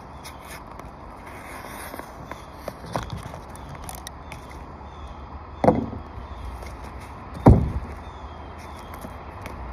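Knocks and thumps during roof work: a light knock about three seconds in, then two heavy thumps, over steady background noise.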